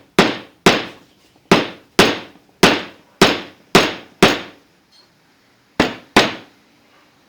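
Hammer driving a nail home: ten sharp blows, eight in a steady run about two a second, then a pause and two final blows.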